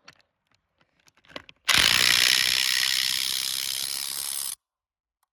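RIDGID 18V brushless subcompact half-inch impact wrench hammering a wheel lug nut tight in one burst of about three seconds, which stops suddenly. A few light clicks come before it.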